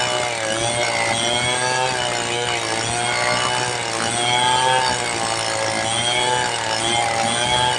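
Two-stroke chainsaw running at high revs under load while cutting teak into boards, its engine pitch wavering up and down as the cut goes on.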